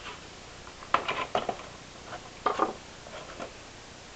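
Small clicks and light knocks of a hard plastic display box and tray being handled while a die-cast model airliner is taken out, in short clusters about a second in and again around two and a half seconds.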